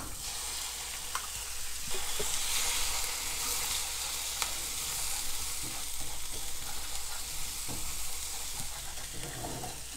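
An egg sizzling in a hot frying pan with diced onions, stirred and scrambled with chopsticks that click against the pan. The sizzle swells about two seconds in.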